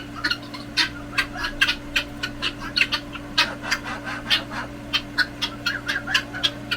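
A flock of small caged finches, Bengalese finches, chirping in quick short calls, several a second, over a steady low hum.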